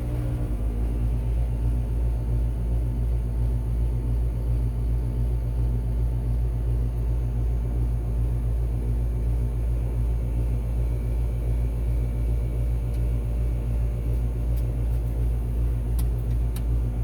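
Rheem RA13 central air conditioner's outdoor unit running just after startup, its scroll compressor and condenser fan making a steady low rumble with a fast flutter.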